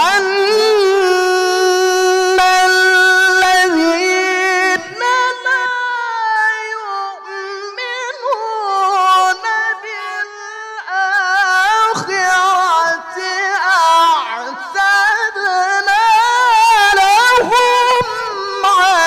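A male qari chanting the Quran in the melodic tilawah style into a microphone: a long, high held note to open, then long flowing phrases with heavy vibrato and ornamented turns, broken only by short pauses for breath.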